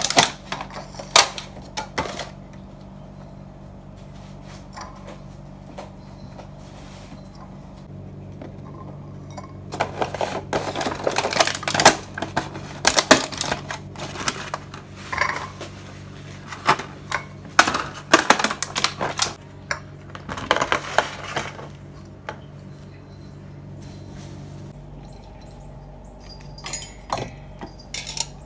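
Clear plastic clamshell fruit boxes being opened and handled: sharp crackles and clicks of the rigid plastic, thickest in the middle, as grapes are taken out and set on a plate. A steady low hum runs underneath.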